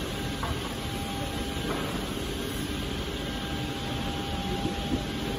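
Steady machinery hum and rumble of a workshop or warehouse, with a faint steady whine and a few light clicks.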